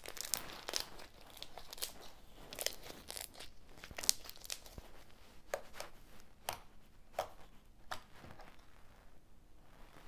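Slime being kneaded, pressed against a wooden tabletop and stretched by hand, giving off an irregular run of small crackles and pops, the sharpest about four seconds in.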